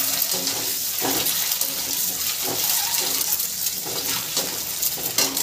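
Peeled boiled eggs shallow-frying in mustard oil in a kadhai over low heat: a steady sizzling hiss with fine crackling spatters of the oil.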